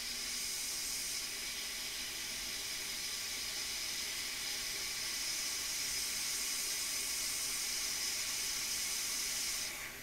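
Hot air rework gun blowing a steady hiss of hot air onto a small surface-mount chip to melt its solder for removal with tweezers. The hiss cuts off near the end as the gun is taken away.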